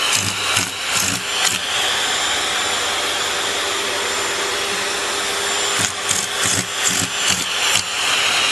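Vacuum cleaner running with its nozzle at a cat's fur. The suction sound comes and goes in quick pulses, about three a second, at the start and again near the end, and holds steady in between.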